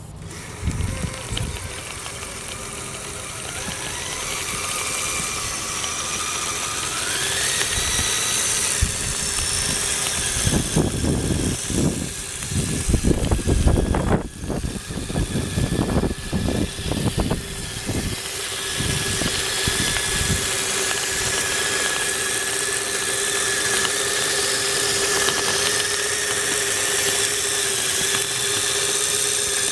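Electric motor and gearbox of a 1/10-scale RC rock crawler on rubber track units, whining steadily as it climbs a dirt hill, the pitch stepping up about a quarter of the way through. Through the middle there are loud low rumbling bursts.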